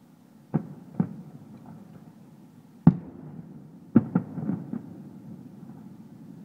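Distant aerial firework shells bursting as a series of booms. Two come close together in the first second and the loudest comes near the middle. Another follows about a second later, then a quick run of smaller cracks.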